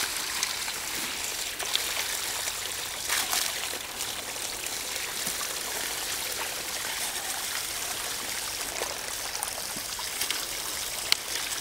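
Water poured from a plastic bucket onto gravel at the head of a gold sluice and washing down its riffles: a steady trickling and running of water, with a few small clicks of gravel.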